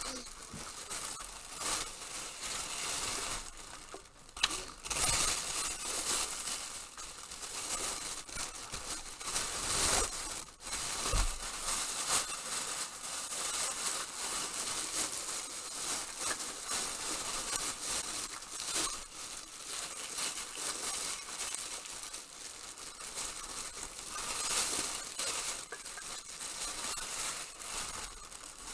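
Plastic packaging crinkling and rustling as it is handled, a continuous run of irregular crackles with a few louder knocks and rustles.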